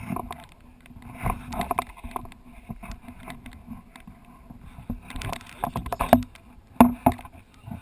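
Handling noise of a GoPro camera on a pole, heard through its waterproof dive housing: irregular knocks, bumps and rubbing as the pole is hauled up out of the water and over a boat's rail. The sharpest knocks come near the end.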